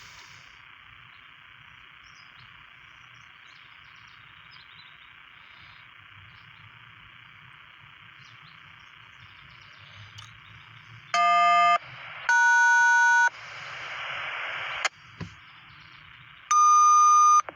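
Railroad radio scanner hissing on an open channel, then three short electronic beep tones with a burst of static between the second and third: the signalling tones of the railroad radio channel.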